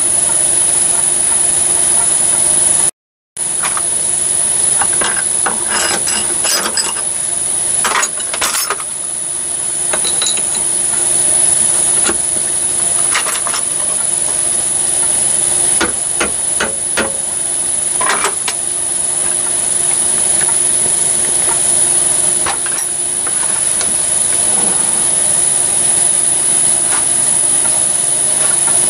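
Scattered metallic clicks and knocks of tooling being handled at a Myford lathe while its chuck is at rest, over a steady hiss with a thin high whine. The sound drops out briefly about three seconds in.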